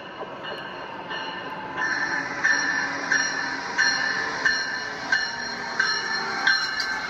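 Motorised LEGO City passenger train (set 60197) running on plastic LEGO track, its wheels clicking over the track joints about every two-thirds of a second over a steady motor whine. It gets louder about two seconds in as the train comes close.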